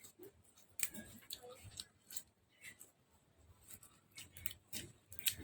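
Someone eating beef noodle soup: scattered, irregular soft clicks and smacks of chewing and eating.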